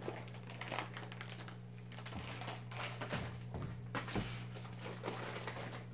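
Faint, irregular clicks and taps of a person stepping over to cardboard shipping boxes and handling them, over a steady low hum.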